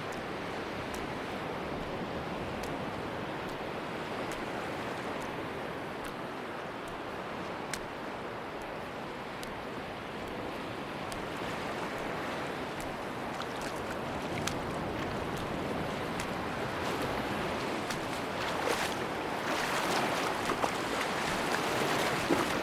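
Sea surf washing onto a beach: a steady rush of waves that swells louder over the last few seconds as a wave breaks, with a few faint ticks scattered through it.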